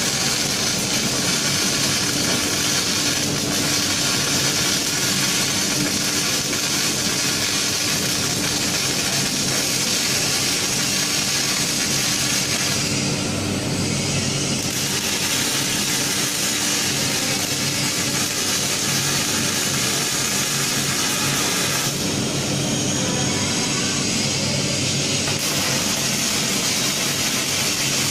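Robotic MIG welding arc on a forklift mast: a steady hiss over a steady low hum. The hiss drops away briefly about 13 seconds in and again for a few seconds from about 22 seconds in, as the arc pauses between welds.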